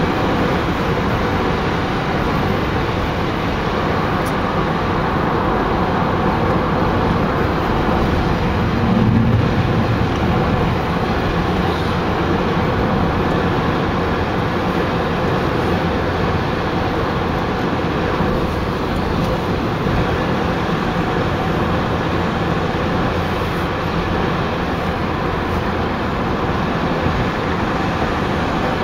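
Steady road noise heard from inside a moving car on a wet highway: a continuous rush of tyres and engine, with a brief louder swell about nine seconds in.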